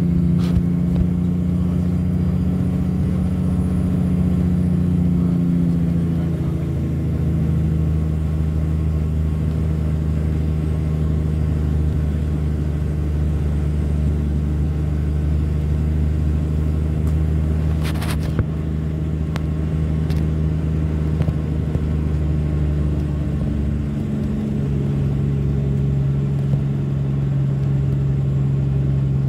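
Log truck's diesel engine heard from inside the cab, running steadily under way. Its note steps down in pitch about six seconds in and again near the end. A brief sharp click comes around two-thirds of the way through.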